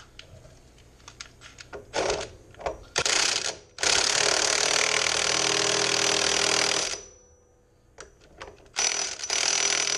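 Impact wrench hammering in three runs, a short one about three seconds in, a long one of about three seconds, and another near the end, as it tightens down the big axle nut on a mower wheel hub. Small metal clicks and knocks come between the runs.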